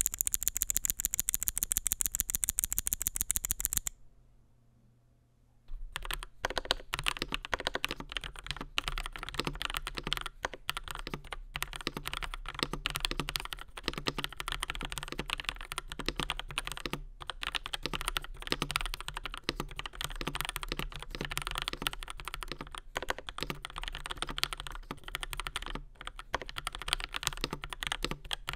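Typing on a DURGOD K620W mechanical keyboard with Gateron CAP Black Crystal V2 silver switches, aluminium plate and PBT doubleshot keycaps: a steady run of key clicks and clacks. It opens with about four seconds of a rapid, very even clicking with a bright, hissy top, then a short quiet pause of under two seconds before the typing starts.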